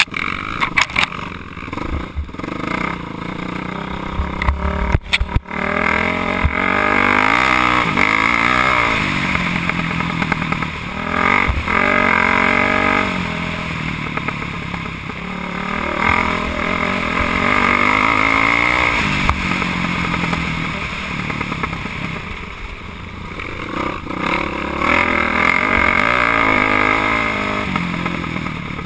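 KTM dirt bike engine revving up and falling back again and again as the rider accelerates and shifts along a dirt track, heard from a helmet camera. For the first five seconds or so it is mixed with rapid knocks and clatter as the bike pushes through brush.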